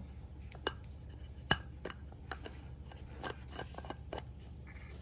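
Light clicks and taps of a makeup powder compact and its cardboard packaging being handled, with two sharper knocks, one under a second in and one about a second and a half in.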